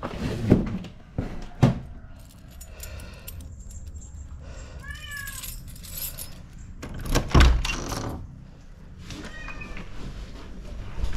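A cat meowing twice, two short calls a few seconds apart, between sharp clicks and knocks from the knob lock and latch of a wooden front door being unlocked and opened.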